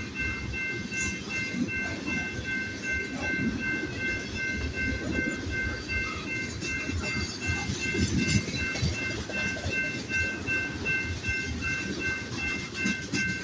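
Freight cars of a passing manifest train rolling over a grade crossing, a steady low rumble of steel wheels on the rails. Over it the crossing bell rings on and on in rapid, even strokes.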